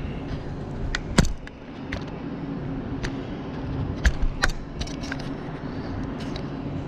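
Air-cooled flat-six of a 1973.5 Porsche 911T idling steadily at warm idle, with sharp clicks and knocks of the camera being handled close by.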